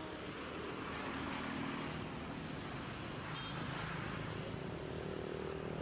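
Steady hum of a motor vehicle engine running with road noise, its pitch shifting slightly partway through, and a short high chirp about three and a half seconds in.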